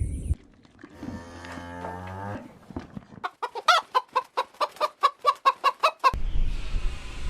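Chicken clucking in a fast run of short, sharp clucks, about five a second, preceded by a single drawn-out pitched call.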